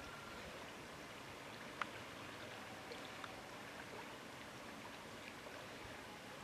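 Small river flowing: a steady, soft rush of water, with one sharp tick a little under two seconds in.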